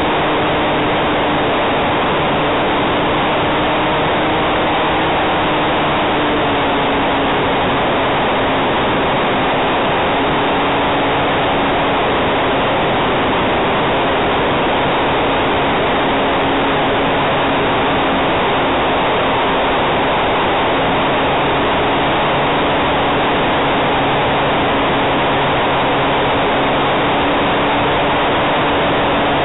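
Radio-controlled Hype Cessna 400 Corvalis model plane in flight, picked up by its onboard camera: a loud, steady rush of propeller wash and wind on the microphone, with a faint motor hum that drops slightly in pitch a few seconds in.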